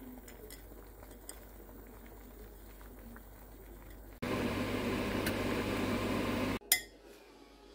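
Water boiling in a glass pot of spaghetti: a faint simmer with a few light clicks of a metal spoon against the glass, then from about four seconds in a louder, even, hissing rolling boil that cuts off sharply a couple of seconds later.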